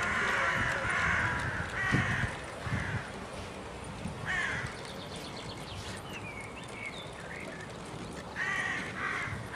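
A crow cawing repeatedly: harsh calls in quick groups at the start, once in the middle and again near the end, with a small bird's faint whistled notes in between.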